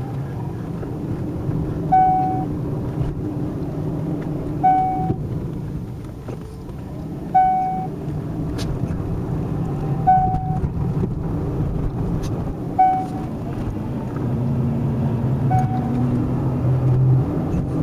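Rebuilt Cadillac Northstar V8 idling steadily. A short electronic beep repeats about every two and a half to three seconds, six times.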